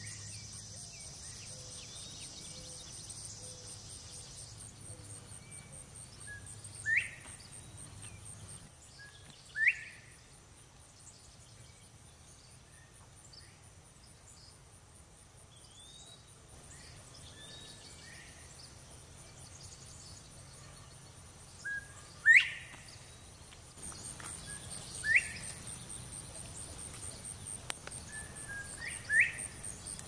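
Northern bobwhite whistling its rising 'bob-white' call several times, each a short whistle that slurs sharply upward, some with a faint lower note just before. A steady high insect trill runs underneath.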